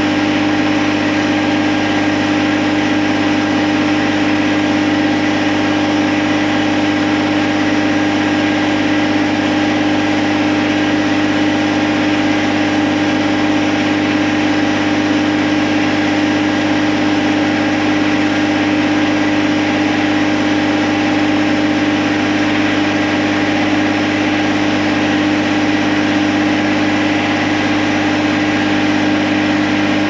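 John Deere compact tractor's diesel engine idling steadily, with an even, unchanging hum.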